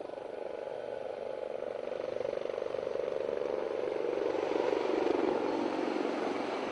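A formation of HAL Dhruv helicopters flying low overhead, their rotor and turbine sound growing louder as they close in. The pitch drops near the end as they pass.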